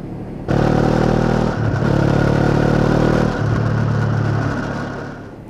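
Motorcycle engine pulling away under throttle, starting suddenly, with two short breaks in the sound, then dying away near the end.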